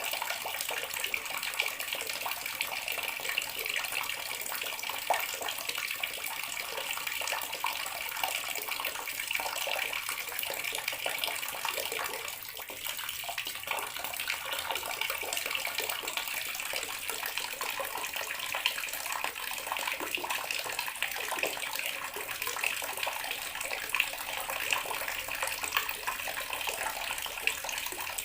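Water tap running steadily into a bathroom sink, an even splashing stream with a brief slight dip about twelve seconds in.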